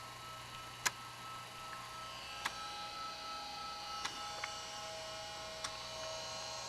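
A laptop's disk drives working through an operating-system install: a steady high whine with a few sharp, irregular clicks.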